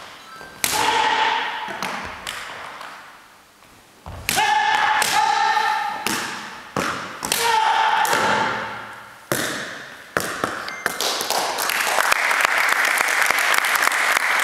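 About six sharp cracks and knocks as a sword cuts through upright bamboo and the cut pieces hit a wooden gym floor, several with a brief ringing tone and echo in the hall. From about eleven seconds in, a group applauds.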